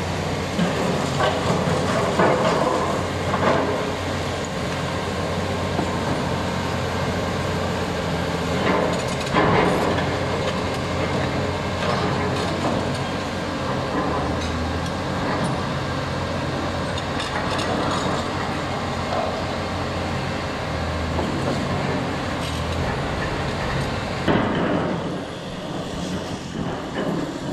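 Diesel engines of tracked demolition excavators running steadily, with scattered knocks and clattering of masonry and roof debris as the machines break up a building.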